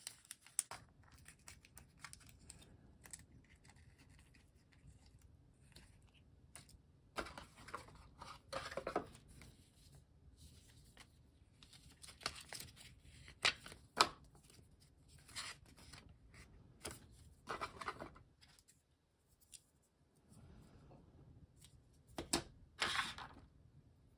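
Paper inserts and cardboard packaging handled and pulled apart: scattered short rustles, scrapes and tearing sounds with quiet gaps between them.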